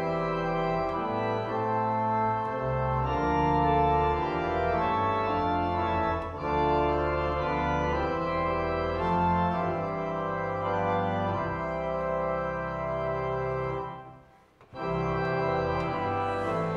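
Viscount Renatus custom-built digital church organ playing sustained full chords over a steady pedal bass. The chords break off for just under a second near the end, then start again.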